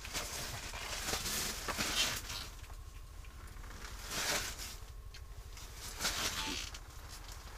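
Faint handling sounds: light rustling and small clicks and knocks of gear being moved about by hand, over a low steady rumble.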